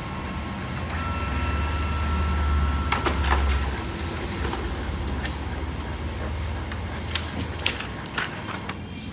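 Canon imageCLASS laser multifunction printer running a copy job. A motor hum with a steady high tone swells for the first few seconds, then a series of clicks follows as the copied page is fed out.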